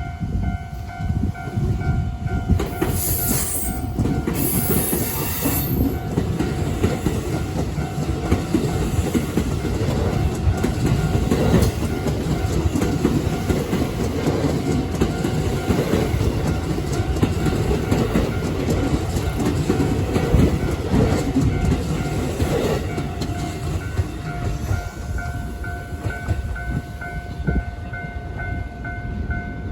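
A JR West limited express Haruka electric train running past a level crossing, loud for about 24 seconds and then easing off, with brief high-pitched hissing a few seconds in. The crossing's electronic warning bell rings steadily throughout.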